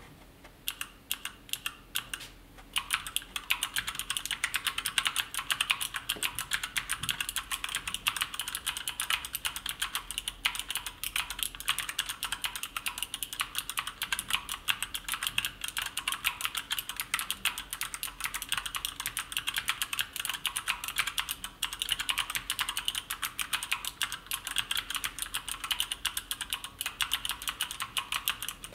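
Typing on a MKF14S Bossmonster TFG mechanical keyboard with pink speed switches: a few scattered keystrokes, then from about three seconds in a fast, even stream of key clicks.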